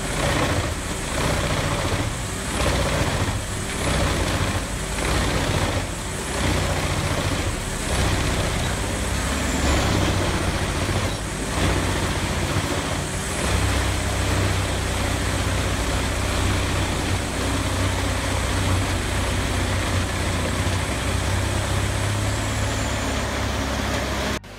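Vermeer WC2500TX whole tree chipper running under load: a heavy engine drone with dense chipping noise, surging about once a second for the first several seconds and then running more steadily. It cuts off abruptly near the end.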